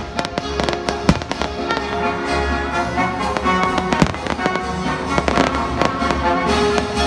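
Aerial fireworks shells bursting in a run of sharp pops and bangs, with music playing loudly at the same time.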